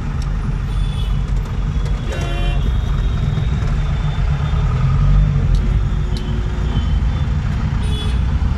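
City traffic heard from inside a taxi: a steady low engine and road rumble, with a vehicle horn honking about two seconds in and a few fainter short horn toots and beeps after.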